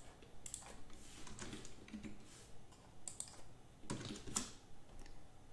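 Typing on a computer keyboard: a run of uneven keystrokes, with a louder cluster about four seconds in.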